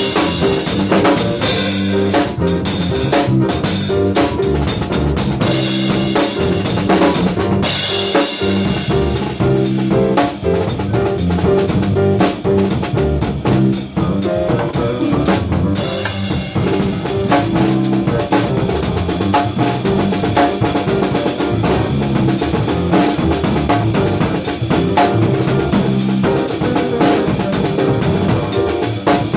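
Live funk jam: a drum kit plays a busy syncopated groove with rimshots and cymbals, over a bass line.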